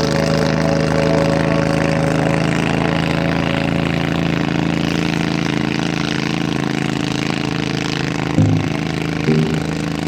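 Boat engine running steadily at an even pitch, with a few short pitched notes coming in near the end.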